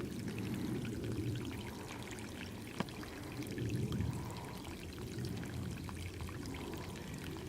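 Water of a small dammed stream pouring steadily, with one sharp click just under three seconds in.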